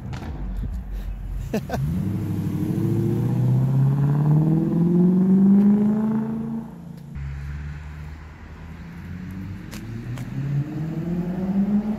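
BMW E39 540i's V8 accelerating hard through a freer exhaust (secondary cats and muffler deleted, 3-inch resonator and piping). The engine note climbs for about five seconds, drops at a gear change about seven seconds in, then climbs again.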